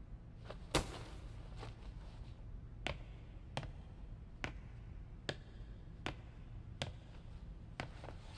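Slow, even footsteps of hard-soled shoes on a stage floor, about one step every 0.8 s, with a louder knock about a second in, over a low steady hum.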